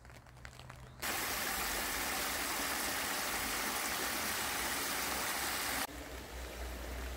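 Water running in a small stone-walled stream channel: a steady rushing that starts abruptly about a second in, then drops to a softer flow with a low rumble underneath near the end.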